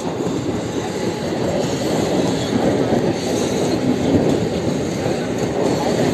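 Mumbai suburban electric multiple-unit local train running past close by: a steady, loud noise of wheels on rails as the coaches go by.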